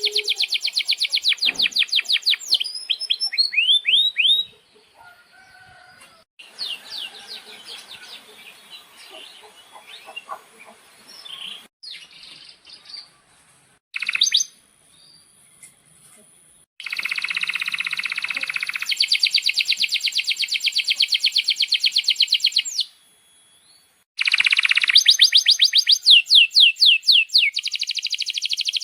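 Male domestic canary singing: long, fast rolls of rapidly repeated high notes, with a softer stretch of mixed twittering in between. The song breaks off abruptly several times.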